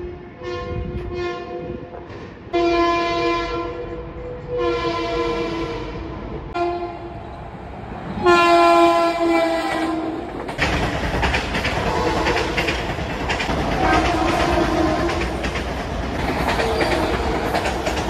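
Long Island Rail Road train horns sounding a chord, first a few short toots and then several long blasts with a short one between. From about ten seconds in, a passing train's rumble and rail clatter take over, with the horn fainter beneath it.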